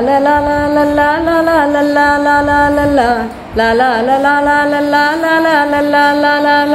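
A song's melody in long held notes, in two phrases of about three seconds each with a short break between them, with no clear words.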